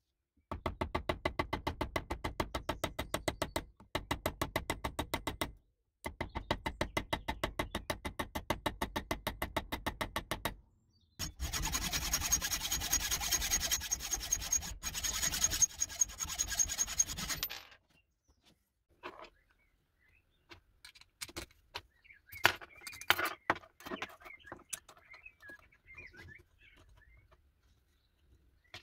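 Metalworking at a bench vise: three runs of rapid, evenly spaced strokes on a small steel part, then a hacksaw cutting through a steel pin clamped in the vise for about six seconds, with a steady high scraping note. After that come scattered light clicks of small metal parts being handled and fitted.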